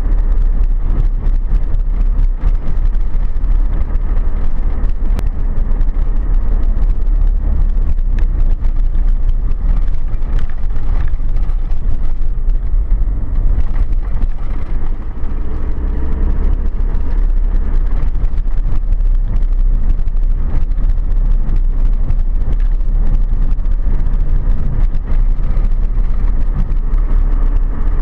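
A vehicle driving steadily along an unsealed dirt road: continuous low engine and tyre rumble with a fine crackle of gravel under the tyres.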